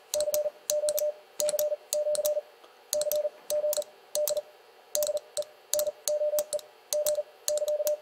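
Morse code sidetone from a transceiver, a single mid-pitched beep keyed on and off in quick groups of dits and dahs at 40 words per minute, with the paddle contacts clicking at each stroke. The sending is faster than the operator can keep clean, and the letters come out garbled.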